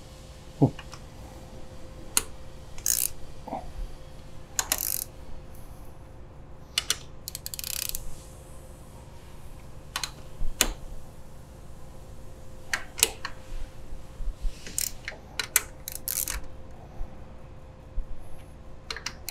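A ratchet-head wrench tightening engine crankcase bolts snug: short bursts of ratchet clicking and sharp metal clicks and taps as the socket is set on each bolt, coming at irregular intervals.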